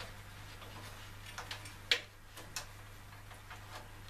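Light, irregular clicks and taps of a plastic cable connector and its lead being handled and pushed into place inside a PC case. There are about nine of them, with the sharpest click about two seconds in.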